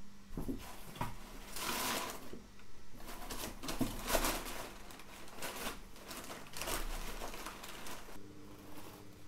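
Crumpled brown kraft paper rustling and crinkling in irregular bursts as a cat burrows underneath it inside a long cardboard box, dying down near the end as the cat settles.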